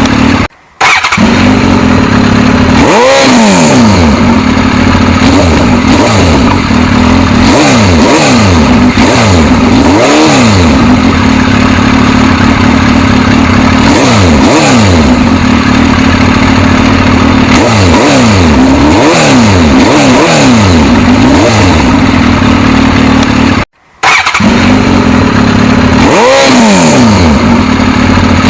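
Suzuki GSX-S1000 inline-four engine running loud at idle while the throttle is blipped over and over, each rev rising and falling quickly. The sound cuts out briefly twice, about a second in and near the end.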